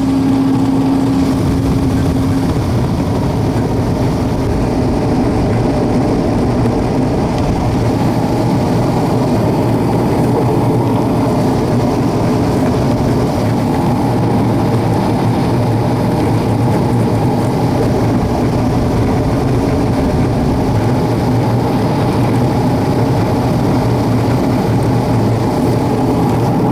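WAR Corsair homebuilt airplane's piston engine and propeller running steadily at ground idle, heard from the cockpit.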